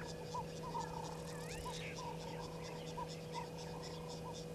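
Insects chirping in an even rhythm of about four pulses a second, with a lower chirp repeating two or three times a second. A single gliding bird whistle comes about a second and a half in, over a steady low hum.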